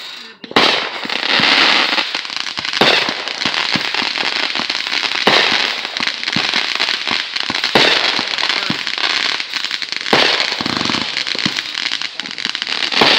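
Consumer aerial fireworks going off in quick succession: launches and bursts over dense crackling, with a louder bang every two to three seconds.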